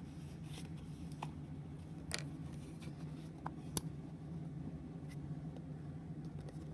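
A few faint clicks and taps from handling a plastic glue bottle over a plastic lid, against a steady low room hum.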